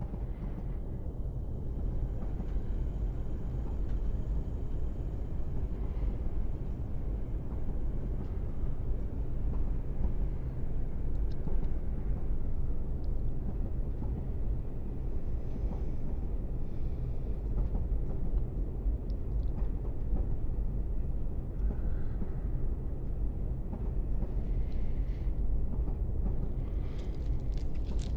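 Steady low rumble of a passenger train carriage running along the track, heard from inside the carriage, with a few faint light sounds near the end.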